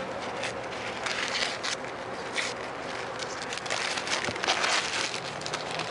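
Irregular rustling and crackling as a wooden beehive comb frame is handled and turned over with gloved hands.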